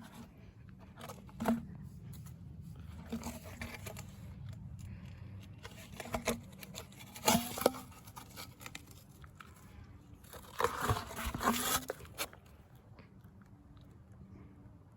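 Broken shock absorber parts being handled: scattered knocks and rattles, with a longer clattering stretch about ten seconds in.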